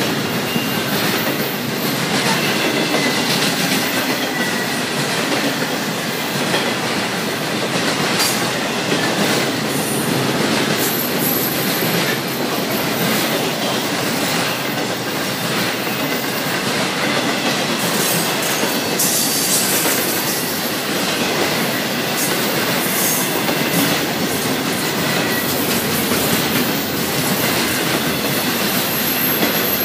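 Intermodal freight train's loaded double-stack container and trailer cars rolling past at steady speed, with continuous wheel-on-rail noise and clicking over rail joints. Thin high wheel squeal comes and goes.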